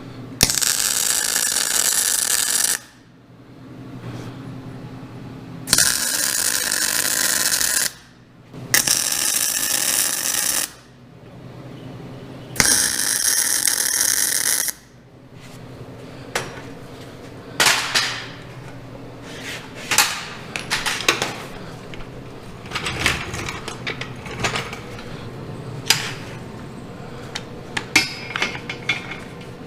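MIG welder laying tack welds: four welding runs of about two seconds each, then short sharp clanks and clicks of metal parts and tools being handled.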